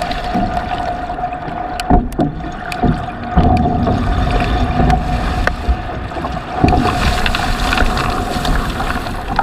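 A boat running on open water, with water and wind noise on the microphone, a steady high whine, and a few sharp knocks.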